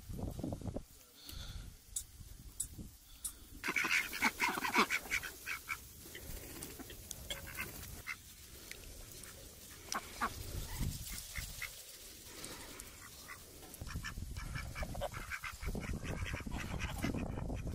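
Domestic waterfowl calling: a burst of rapid, repeated calls about four seconds in, scattered single calls after, and another run of calls near the end.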